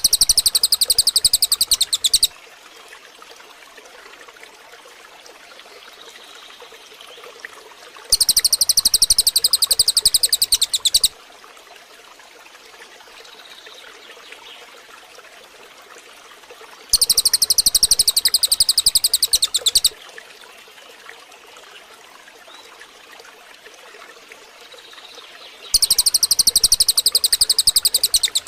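A songbird's very fast, high trill, about three seconds long, repeated about every nine seconds as if looped. Beneath it runs a steady background of running-water noise.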